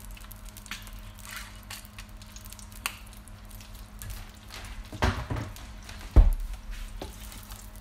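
Wooden spatula scraping and pushing a pat of butter through olive oil in an Instant Pot's nonstick inner pot as it heats, with a faint sizzle starting. Two dull knocks come near the end, the louder about six seconds in.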